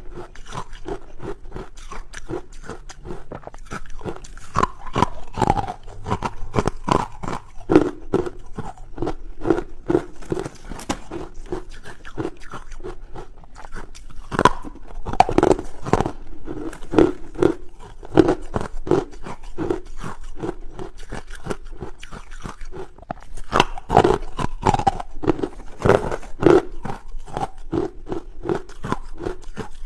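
A person biting and chewing hard carbonated ice close to the microphone: a dense, irregular run of sharp crunches, with louder bites about halfway through and again a few seconds before the end.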